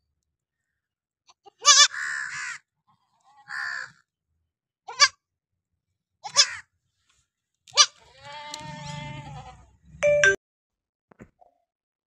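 Young goat kid bleating: short, high, quavering calls, four of them, with a longer, lower call about eight seconds in and a brief sharp sound about ten seconds in.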